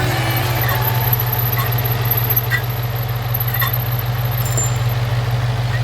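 2017 Ford Mustang GT's 5.0 V8 idling steadily, with a short high chirp about once a second on top. The uploader's tags tie a noise like this to a failing water pump.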